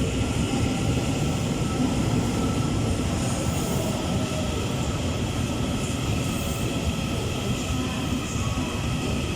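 TRA EMU800 electric multiple unit rolling into the station: a steady rumble of wheels on rails with faint steady tones above it.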